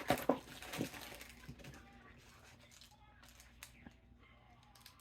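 Faint crinkles and taps of snack packaging being handled, mostly in the first second, then a quiet room with a few light ticks.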